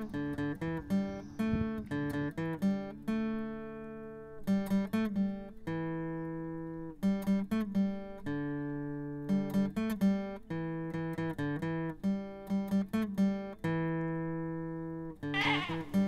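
Acoustic guitar music: plucked notes and ringing chords at a steady rhythm.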